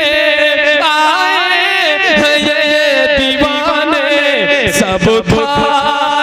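A man singing an Urdu devotional manqabat into a microphone, drawing out a long, wavering melismatic line with no distinct words.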